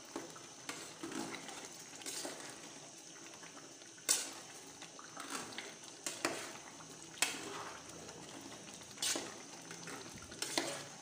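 Metal spoon stirring a thick stew in a metal pot, scraping through the stew and clinking irregularly against the sides of the pot.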